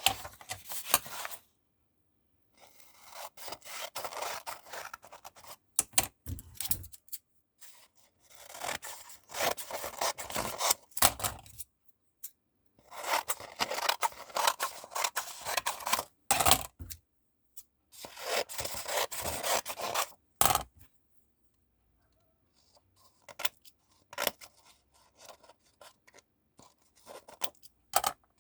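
Freshly sharpened scissors cutting through paper, a run of rasping snips in bursts of a few seconds with short pauses between them, fainter and sparser near the end.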